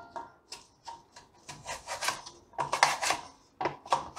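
Peeled potato slid repeatedly across the blade of a handheld steel wafer slicer, each stroke a short rasping scrape as a thin slice is cut off, about two to three strokes a second.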